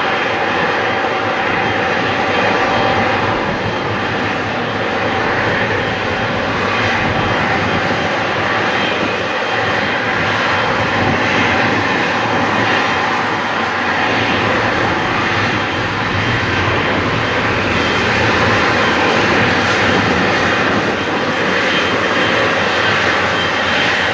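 Boeing 777's twin GE90 turbofan engines running steadily as the airliner taxis close by.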